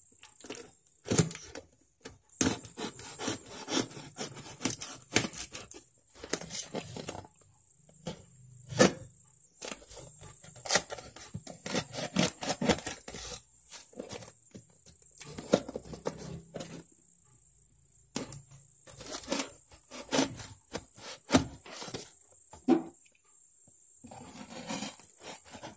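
A large knife cutting and scraping at a cardboard box and its packing tape, with irregular scrapes, knocks and rustling of the cardboard as the box is worked open with difficulty.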